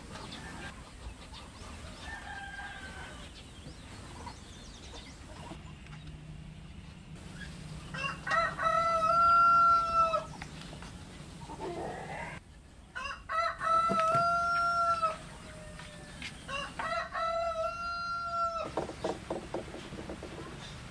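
A rooster crowing three times, each crow a long held call, with fainter bird calls before them.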